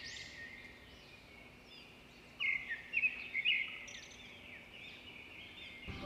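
Small birds chirping and calling in the background, with a louder run of sharp chirps about halfway through.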